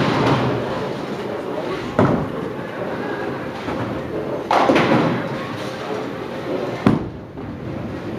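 Bowling-alley ambience: a steady murmur of voices with three sharp thuds or clatters, about 2, 4.5 and 7 seconds in.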